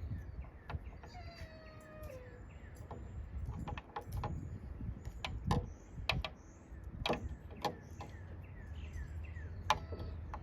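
Dog whining in high, falling whines, the first and longest about a second in, with scattered sharp clicks and clinks around it.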